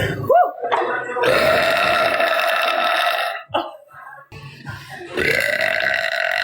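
A woman belching loudly: a short belch at the start, then a long drawn-out belch held on one steady pitch for about two seconds, and near the end another that rises in pitch at its onset.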